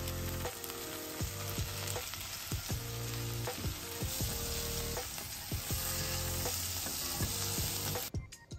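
Pumpkin chunks and diced onion sizzling as they fry in a pot, stirred and turned with a silicone spoon. The sizzling cuts off suddenly near the end.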